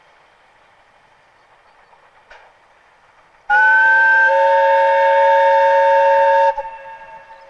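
Narrow-gauge steam locomotive blowing its steam whistle for about three seconds: a loud chord of several steady tones that slides up slightly as it starts, stops sharply and dies away over about a second. Before it, the train's running is heard only faintly.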